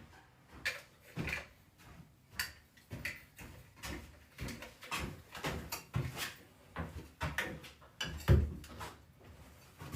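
Irregular light clicks and knocks of hand work as a part is screwed back on, with one heavier knock near the end.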